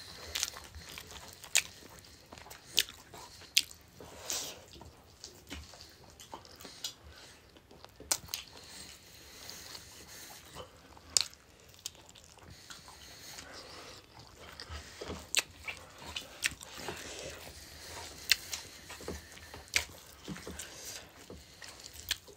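Close eating sounds of rice and chicken curry eaten by hand: chewing and wet mouth smacks, with sharp irregular clicks scattered throughout.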